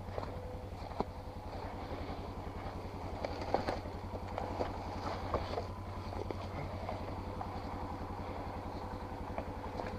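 Four-wheeler (ATV) engine running steadily at low speed, with a few sharp clicks and knocks in the middle.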